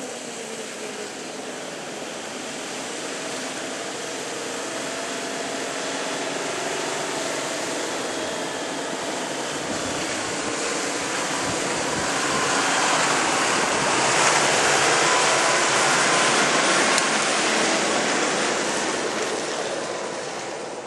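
Four-wheel-drive engine running as the vehicle drives through a creek crossing and climbs out toward and past, with a steady rush of water and tyre noise. The sound grows louder to a peak about two-thirds through, then fades.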